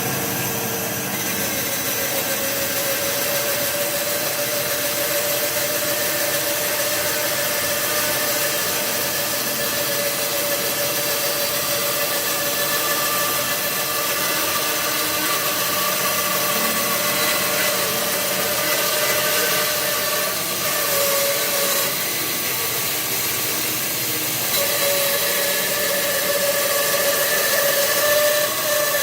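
Bandsaw running with a steady hum and whine as its blade resaws a thin slice off the side of a small log. The log is fed through on a sliding carriage jig.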